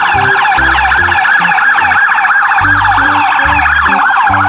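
Emergency vehicle's electronic siren in a fast yelp, its pitch sweeping up and down several times a second, the sign of a vehicle responding to a call. Low music notes play underneath.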